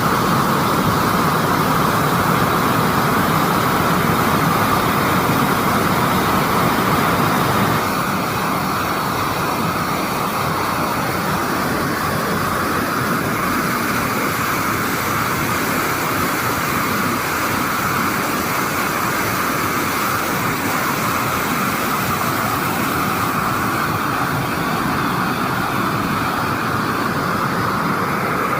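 Waterfall: a steady, loud rush of falling water that drops slightly in level about eight seconds in.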